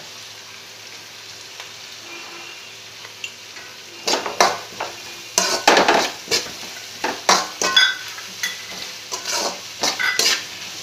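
Vegetables sizzling in hot oil in a metal wok; from about four seconds in, a slotted metal spatula strikes and scrapes the pan over and over as they are stir-fried.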